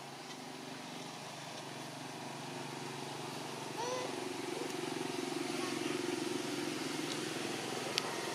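A motor vehicle's engine: a steady low hum that grows louder from about three seconds in, then eases off near the end. A few short chirps come about four seconds in, and a single sharp click comes near the end.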